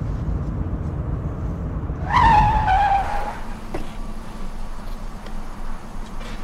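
Late-1960s Ford Mustang convertible braking hard: the engine runs steadily, then about two seconds in the tyres give a loud screech for about a second, falling slightly in pitch, as the car skids to a stop. After that the engine runs on more quietly.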